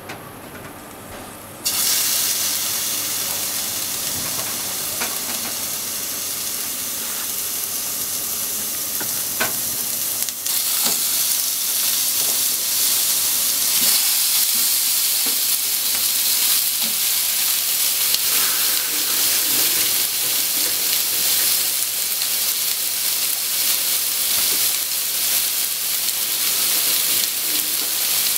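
Pork belly cubes sizzling in a hot nonstick frying pan. The sizzle starts suddenly about two seconds in and gets a little louder after about ten seconds, with a few light clicks as more pieces go into the pan.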